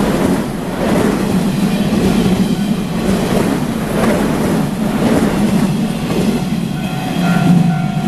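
Electric passenger train passing close by: a steady rumble with the wheels clattering over the rail joints. Near the end the level-crossing warning bell rings out as the rumble eases.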